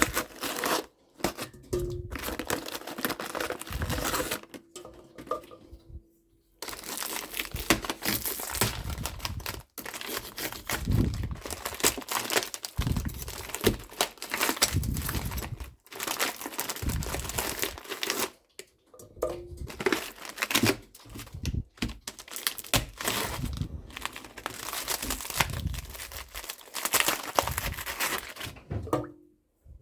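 Plastic food packaging being crinkled and torn open by hand, in a run of rustling bursts with short pauses between them.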